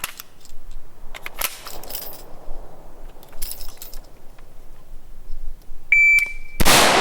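A shot timer's start beep, one short high tone, followed about 0.7 s later by a single loud shot from a Palmetto State Armory M4-style AR-15 carbine. It is a timed up drill, with 0.7 s from beep to shot. Before the beep there are only a few faint handling clicks.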